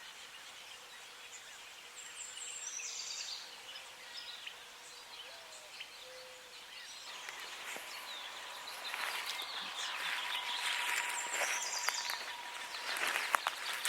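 Outdoor evening ambience with a few quick, high bird chirps a couple of seconds in; from about halfway a louder breathy hiss builds, with a faint steady tone under it.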